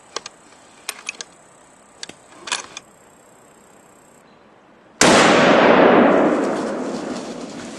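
A few light clicks, then about five seconds in a single loud gunshot whose boom dies away slowly over nearly three seconds. It is a follow-up shot at a black bear after the first shot's hit was in doubt.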